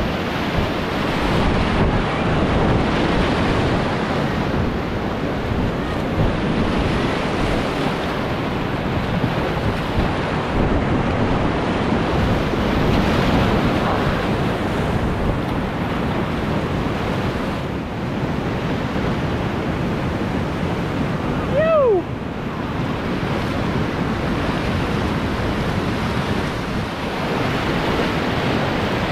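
Whitewater rapid rushing steadily around a kayak running it, heard close to the water. About two-thirds of the way through, a short call drops in pitch.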